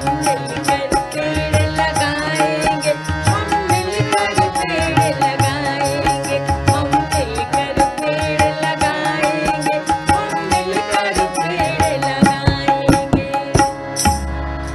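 Indian instrumental backing music with a fast, steady drum beat under a sustained melody.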